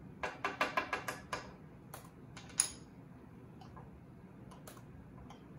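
A spoon stirring liquid in a small glass jar, clicking rapidly against the glass, about five or six clicks a second. Then a few separate taps, one sharper clink with a short ring, and a few faint clicks.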